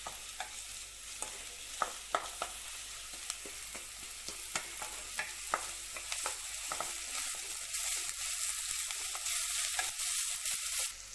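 Chopped onion and ginger-garlic paste sizzling in oil in a stainless steel kadai while a spatula stirs and scrapes, ticking against the metal pan; the paste is being fried until its raw smell cooks off. The sizzle grows louder in the second half and drops off suddenly just before the end.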